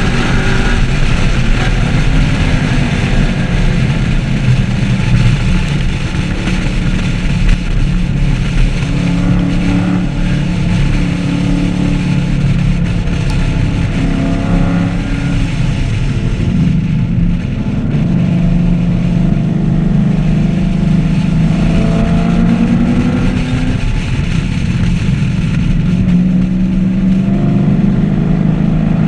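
2014 Chevrolet Camaro 1LE's 6.2-litre V8 driven hard on a racetrack, the engine note repeatedly rising under acceleration and falling off, with a softer stretch about halfway through.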